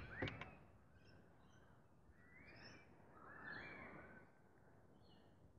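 Near silence: faint outdoor ambience with a few soft bird calls, and a faint knock just after the start.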